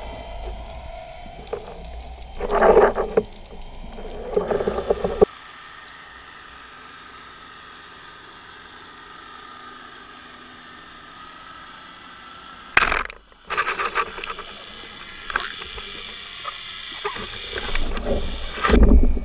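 Underwater sound from a camera on a carbon speargun: fin kicks and water rushing past in the first few seconds, then a steady underwater hum with faint tones while the diver waits. About two-thirds of the way in, a sharp crack as the speargun fires, followed by churning water and splashing as the speared dentex is fought up toward the surface, loudest near the end.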